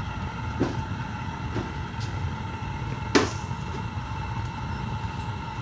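Propane-fired foundry furnace running steadily with forced air: a continuous low rumble with a steady whine. A few metal clanks come over it, the loudest about three seconds in.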